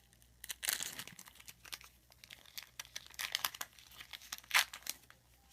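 Foil trading-card pack wrapper being torn open and crinkled by hand, in irregular crackling bursts, the loudest crackle near the end.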